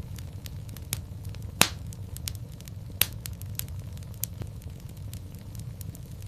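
Wood fire in a fireplace crackling: a steady stream of small ticks and snaps over a low rumble of the flames, with two louder pops about a second and a half in and at three seconds.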